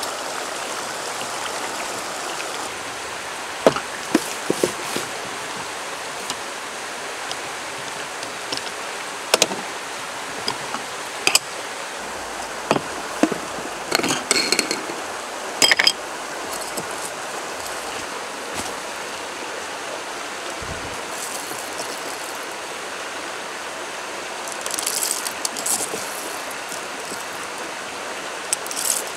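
Steady rush of a shallow stream running over stones, with scattered sharp clicks and knocks of coffee gear being handled, including a jar lid being worked off. Near the end, a short rattle of whole coffee beans being scooped toward a hand coffee grinder.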